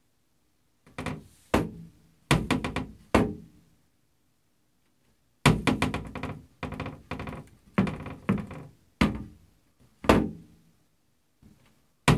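Painted wooden cabinet door knocking and rattling against its frame as a cat paws it open and lets it swing back. The knocks come in bunches of several quick raps, each with a short ring, starting about a second in and recurring every second or so.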